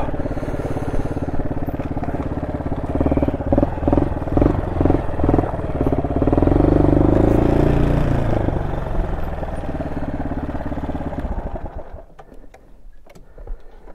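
Honda SL230's single-cylinder four-stroke engine, with an aftermarket muffler and its carburettor re-jetted richer, running: a run of quick revs, then a louder rise that falls back. The engine stops about eleven seconds in, leaving a few light clicks.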